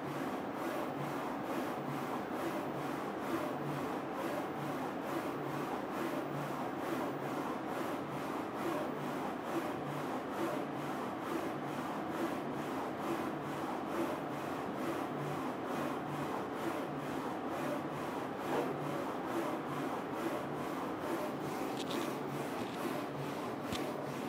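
Focus Alpha-Jet A2 UV flatbed printer printing a mug held in its rotary jig: the print-head carriage shuttles back and forth over the mug in a steady, evenly repeating rhythm of passes.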